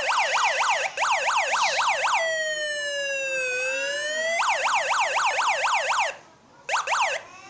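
Homemade electronic siren built from a toy siren sound chip and a transistor, sounding through a small loudspeaker. It plays a fast rising-and-falling yelp at about four sweeps a second, changes to a slow falling then rising wail about two seconds in, and returns to the fast yelp. It cuts off a little after six seconds and starts again briefly near the end.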